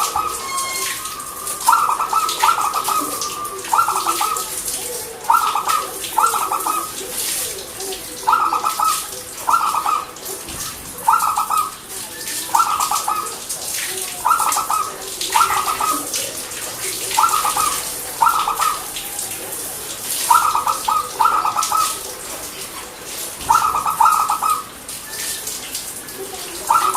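Zebra dove (perkutut) cooing over and over, each phrase a quick group of two or three notes, repeated every one and a half to two seconds. A steady high hiss runs behind it.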